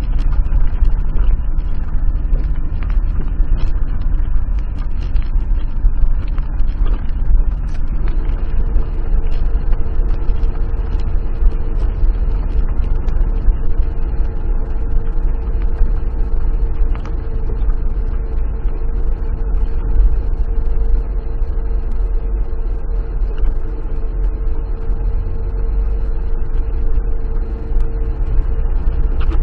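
Car driving uphill, heard from inside the cabin: a steady low engine and road rumble with scattered light ticks, and a steady whine that comes in about eight seconds in.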